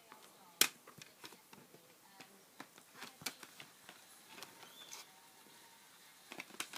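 Plastic DVD case being opened and handled: one sharp click about half a second in, then scattered light clicks and taps of the case and its hinged disc trays, with a quick cluster of clicks near the end.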